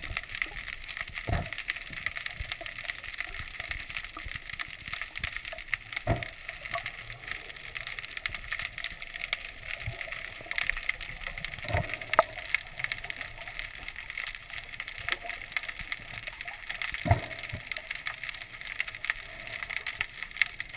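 Underwater sound picked up by a submerged camera: a steady crackling hiss full of fine clicks, with a dull knock about every five seconds, four in all.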